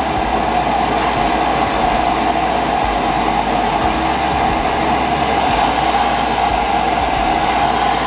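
Plumber's gas torch burning with a steady rushing flame noise, its flame held on a copper water pipe to dry out the water inside before soldering.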